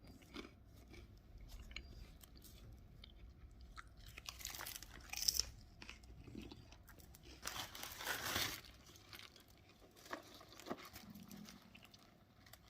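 Crisp Opavia Kolonáda hazelnut spa wafers crunching as they are bitten and chewed, in irregular crackles with two longer, louder crunches about five and eight seconds in.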